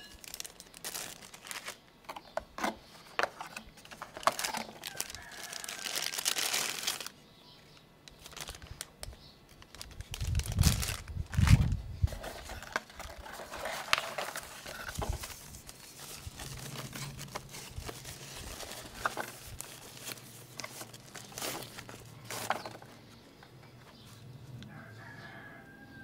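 Cardboard camera box and its packaging being handled: rustling and crinkling, scrapes and clicks, with a few heavier thumps about ten to twelve seconds in.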